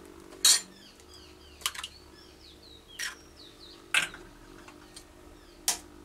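Sharp taps of a steel spoon cracking eggshells against a bowl, about five knocks roughly a second apart. Faint bird chirps sound in the background between the first few taps.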